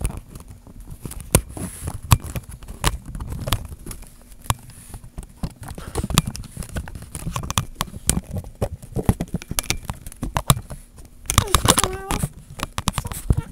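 Plastic Rubik's cube pieces and a small center cap handled close to the microphone: a long run of small clicks, taps and scrapes as the cap is worked at. A short wavering pitched sound comes near the end.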